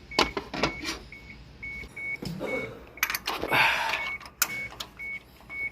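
Metal hand tools clinking and scraping during work on an engine. A high electronic beep repeats about twice a second throughout.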